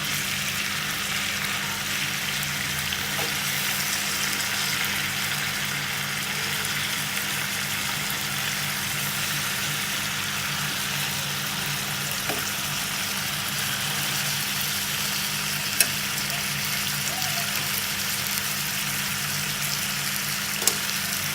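Chicken pieces and baby potatoes sizzling steadily as they fry in hot olive oil in a pan, with a steady low hum underneath. Two sharp clicks come in the second half.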